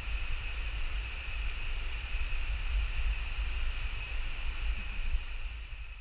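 A river rushing over rocks, with wind buffeting the microphone in uneven low rumbles and a steady high-pitched drone above.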